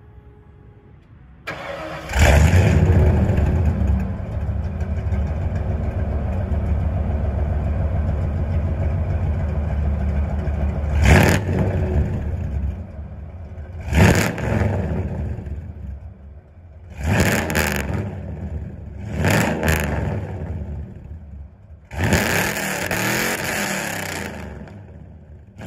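A 1993 Ford F-150 with headers, no catalytic converters or resonators and Flowmaster Super 10 mufflers starting up about two seconds in and idling loud and steady. In the second half it is blipped about five times, the last rev held a little longer.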